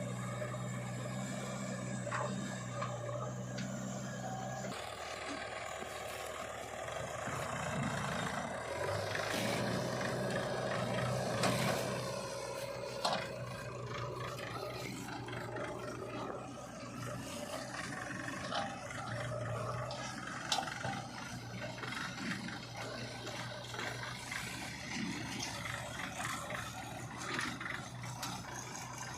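JCB 3DX backhoe loader's diesel engine running, with scraping and clattering from the bucket working soil and a few knocks. The sound changes abruptly about five seconds in.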